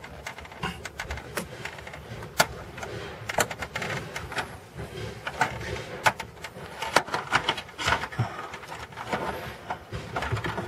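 Irregular clicks, taps and knocks of a Corvette C5 Z06's interior trim and console parts being worked loose and handled.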